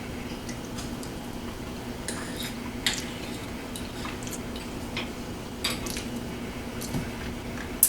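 Cutlery clinking and scraping against plates while eating: scattered light clicks, the sharpest near the end, over a steady low hum.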